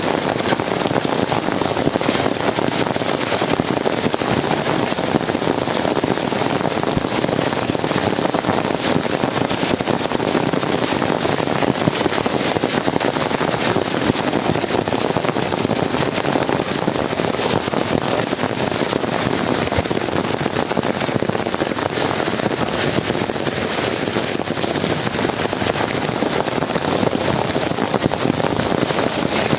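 Heavy hailstorm: countless hailstones pelting down in a dense, steady clatter of fine impacts that does not let up.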